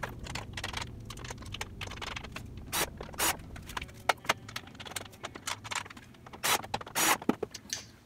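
Sheet-metal access covers being fitted back onto an electric water heater's side panels: a run of clicks, knocks and scrapes, with a few louder scraping bursts.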